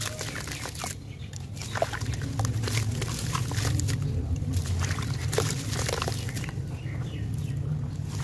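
Wet charcoal chunks squeezed and crumbled by hand in a plastic tub of water: squelching and sloshing with short, sharp splashes and drips, over a steady low rumble that grows louder about two seconds in.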